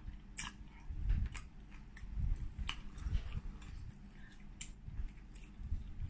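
Close-miked chewing of boiled pork and egg, with wet mouth smacks and irregular sharp clicks.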